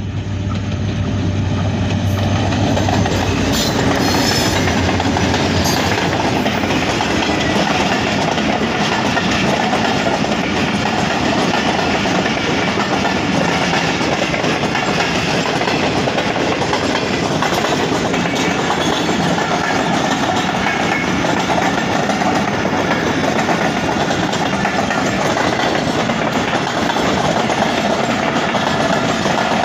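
Pakistan Railways Rehman Baba Express passenger train passing close by: a low locomotive engine hum in the first few seconds, then the steady rumble and wheel clatter of a long line of coaches.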